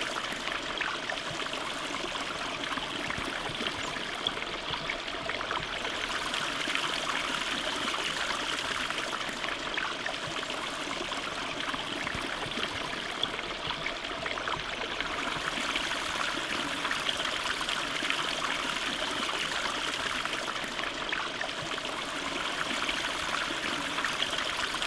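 Running water of a stream flowing steadily, an even rushing and babbling.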